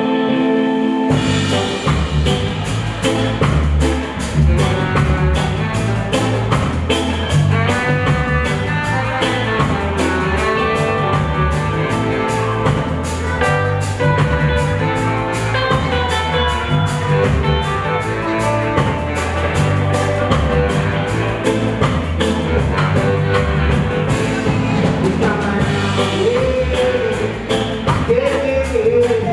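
Band music: guitar chords, then a deep bass line and a drum kit with a steady tick of cymbals come in about a second in and keep a regular beat.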